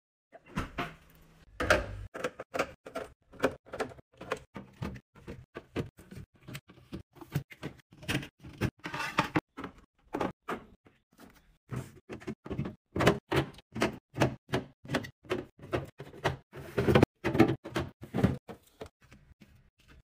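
Bottles and cans being set down on a refrigerator's plastic shelves and door bins, a quick run of knocks and clunks. The loudest cluster comes near the end.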